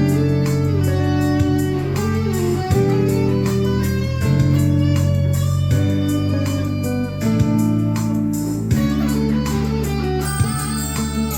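Electric guitar playing held, bending notes over a sustained low backing, with a sharp hit about every second and a half.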